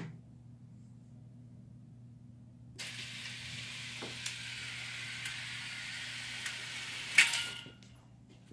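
A wall switch clicks, then motorized drapes run along their track with a steady hiss for about five seconds. A short, louder rush near the end marks the drapes stopping.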